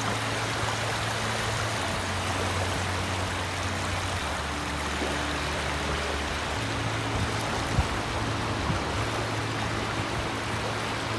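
Small sea waves washing in over flat sand at the water's edge, a steady rush of surf. A single brief thump about two-thirds of the way through.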